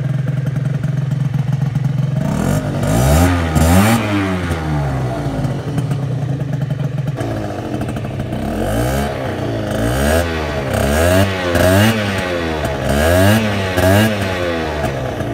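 Aprilia SR50 R scooter's 50cc two-stroke single with a Yasuni R exhaust, idling and then revved in a series of quick throttle blips, its pitch rising and falling with each blip.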